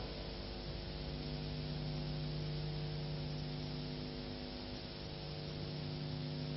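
Steady electrical mains hum with a buzz of overtones over constant tape hiss: the blank tail of an old VHS tape's soundtrack once the music has stopped.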